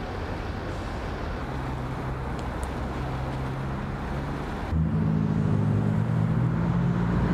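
Engine running with a steady low hum; about two-thirds of the way through, a cut brings in a louder engine hum.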